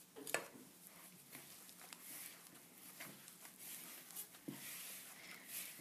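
Faint squishing and rustling of a disposable-gloved hand kneading soft cookie dough with flour in a ceramic bowl. There is a sharp click about a third of a second in.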